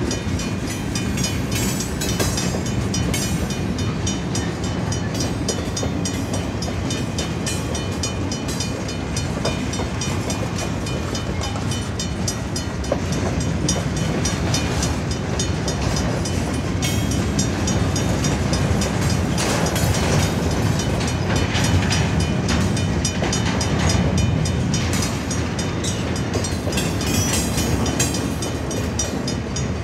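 Freight cars of a passing train rolling by at close range: a steady rumble of steel wheels on rail, with repeated clacks as the wheels cross rail joints. It grows slightly louder in the second half.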